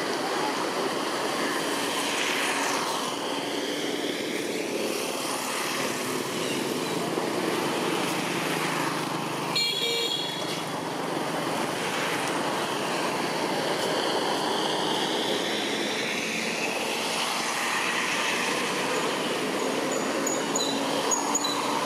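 Steady road traffic noise from passing vehicles, swelling and fading as they go by, with a short vehicle horn toot about ten seconds in.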